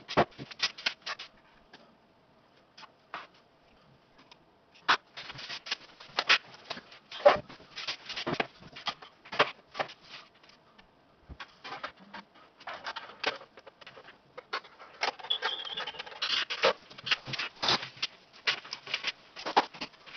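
Irregular clicks, taps and rattles of a rotary phone's plastic housing, handset and cables being handled and fitted together on a glass tabletop, coming in clusters with short pauses between.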